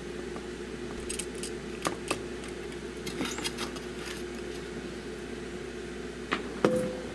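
Alligator-clip test leads clicking and clinking as they are handled and repositioned, over a steady hum, with a couple of sharper knocks near the end.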